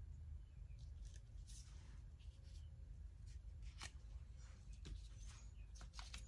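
Near silence: a low, steady room hum with a few faint, scattered clicks.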